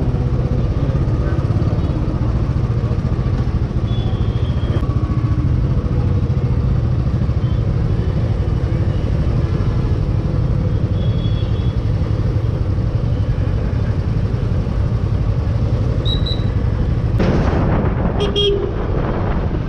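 Single-cylinder motorcycle engine running steadily under the rider, with wind and road rumble. Brief horn toots from surrounding traffic sound several times. Near the end the noise turns brighter and rushier as the bike picks up speed on open road.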